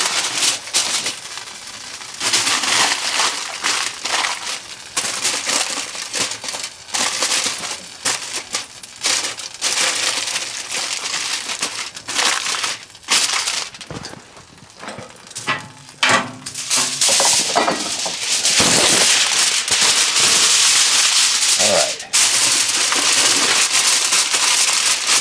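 Aluminium foil crinkling and crumpling as a rack of spare ribs is wrapped in it by hand. The rustling comes in irregular spells at first, then turns into steady, loud crinkling for the last several seconds.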